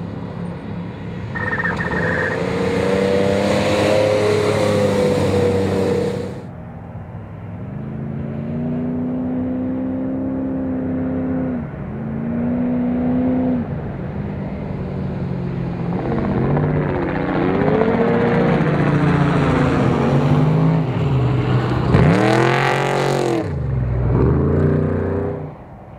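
Off-road race trucks' engines revving hard as they run flat out past on a dirt course, one after another, the engine note climbing and dropping through gear changes. About 22 seconds in, one passes close and its engine pitch sweeps steeply down as it goes by.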